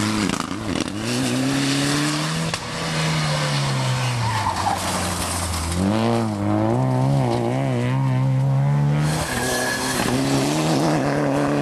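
Rally cars passing one after another at speed, engines revving hard and falling away through gear changes, with tyres skidding on the loose surface. The engine note cuts abruptly from one car to the next a few times.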